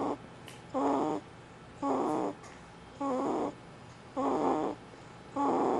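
A sleeping pet snoring in short, regular rasping snores, each about half a second long, about one a second.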